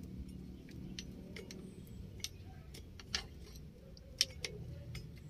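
Scattered light clicks and ticks at irregular intervals from a test lamp and wiring being handled, over a steady low hum.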